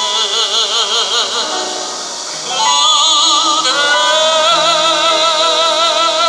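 Operatic tenor singing a Korean art song with wide vibrato, accompanied by grand piano. A phrase ends about a second and a half in, then after a short breath he holds one long note, rising to a higher pitch partway through.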